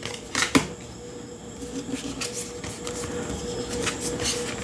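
Tarot and oracle cards being handled and drawn: two sharp card clicks about half a second in, then scattered lighter clicks and slides of cardstock, over a steady faint hum.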